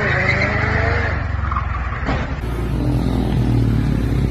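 Supercar engine revving hard as the car accelerates away, its pitch climbing through the first second and then fading. After a cut about two seconds in, a steady low rumble.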